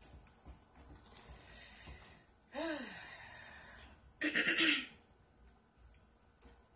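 A woman's short voiced hum whose pitch rises and falls, then a louder throat-clearing sound a moment later, over faint stirring of thick soap batter in a crock pot.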